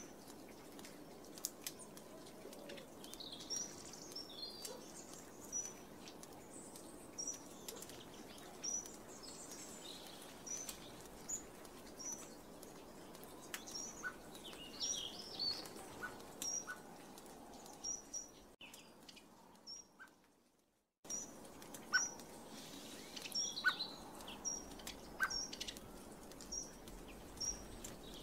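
Small garden birds calling: short high chirps repeated about once a second, with bursts of twittering. About two-thirds of the way through the sound fades away to nothing and then comes back abruptly a couple of seconds later.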